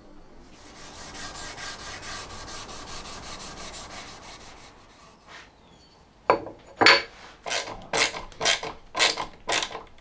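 Hand strokes of an abrasive tool over wood: first a fast run of fine scraping for a few seconds, then, after a short pause, about eight sharp rasping strokes at roughly two a second, louder than the first part.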